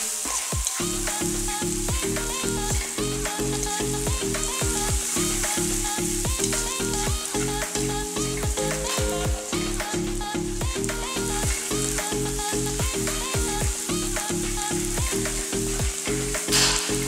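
Chopped onions sizzling in hot oil in a non-stick wok, stirred and scraped with a wooden spatula as they sauté until soft and fragrant. Background music with a steady, repeating bass line plays throughout and is the loudest thing.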